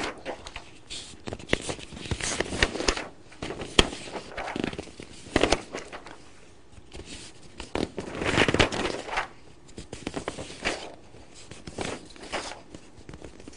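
Paper rustling and crackling in irregular bursts as a long printed list is unfolded and handled.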